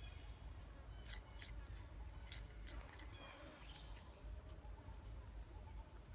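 Faint animal sounds: a few short, high chirps in the first half, over a steady low rumble.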